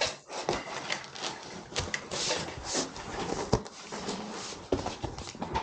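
Building work in a small room: irregular knocks, clicks and short rustling, scraping bursts as foam insulation boards and panels are handled and fitted.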